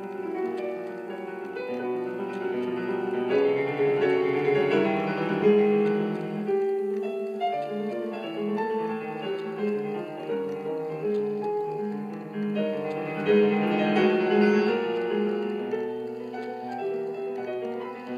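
Background music: piano playing a melody over chords.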